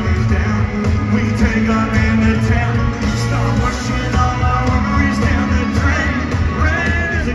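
A live country rock band playing in a large arena, with electric guitars, fiddle, bass and drums, heard loud from the audience.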